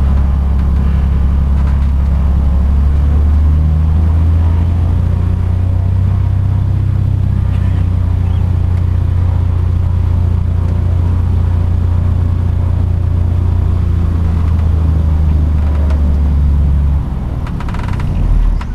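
Cessna Grand Caravan's single turboprop engine and propeller droning steadily at low power as the plane taxis, a deep hum with steady tones above it. Near the end the deep hum drops away.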